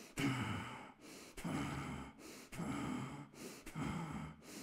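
A man's forceful breathing exercise: four hard exhalations about a second apart, each one pulling the belly in toward the spine.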